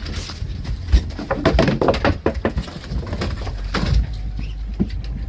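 Handling noise from the phone being gripped, fingers rubbing and knocking near the microphone, giving a jumble of sudden thumps and scrapes, loudest about a second in and again near four seconds. A steady low rumble of the boat's outboard engines runs underneath.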